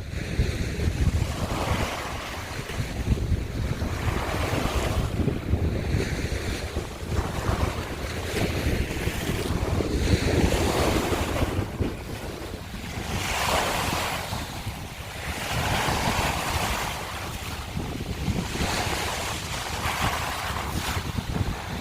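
Small waves breaking and washing over a shore of broken scallop shells, a hissing rush that swells and falls back every two to three seconds. Wind buffets the microphone underneath as a low rumble.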